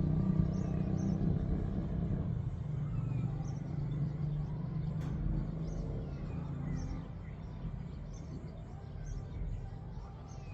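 Low engine rumble of a passing vehicle, fading away steadily over several seconds. Faint high chirps repeat throughout, and there is one sharp click about midway.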